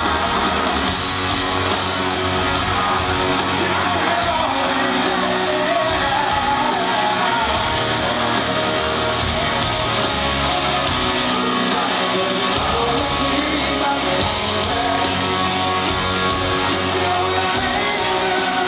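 Live rock band performing, a male lead voice singing over electric guitar and a steady drum beat.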